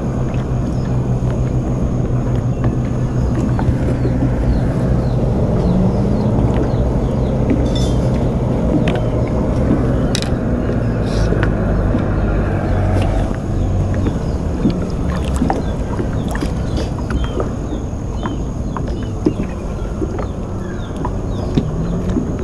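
Small boat's motor running steadily with a low hum that fades about thirteen seconds in, with a few light knocks around the middle.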